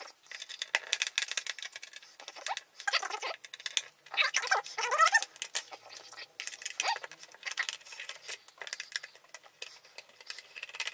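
Screwdriver backing screws out of the plastic case of a Philips D6280 cassette recorder, with the case being handled: rapid clicking and scraping, and a few short squeaks about three seconds in and again around four to five seconds in.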